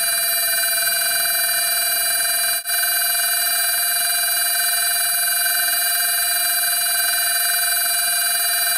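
Steady high-pitched whine of a CNC machining centre's high-speed spindle while a 3.2 mm solid-carbide drill-reamer drills aluminium. The whine drops out briefly about two and a half seconds in, then continues unchanged.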